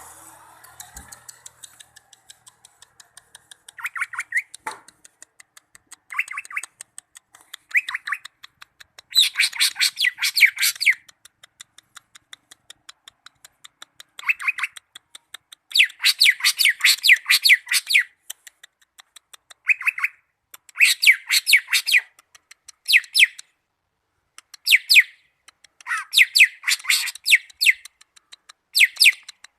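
Cucak ijo (green leafbird) singing in repeated bursts of fast, chattering high notes, each burst lasting one to three seconds with short pauses between them.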